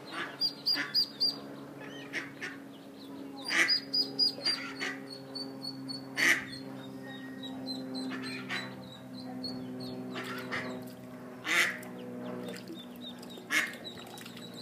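Ducklings peeping in short runs of high calls, over a steady low hum, with a few louder short sharp sounds in between.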